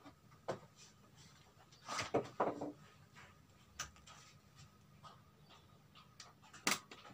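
Scattered light clicks and knocks from hands handling the opened LED TV's backlight panel and LED lenses. There is a short cluster about two seconds in and the sharpest click near the end, over a faint steady hum.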